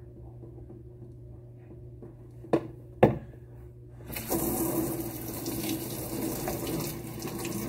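Two sharp knocks about two and a half and three seconds in, then a kitchen faucet's spray is turned on a second later: water rushing through a soap-covered cone air filter and into the sink.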